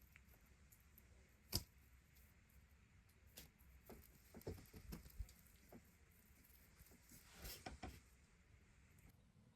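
Faint handling noises, most likely a stretchy toy and its packaging being handled: one sharp click, a scatter of light taps, and a brief rustle near the end, over quiet room tone.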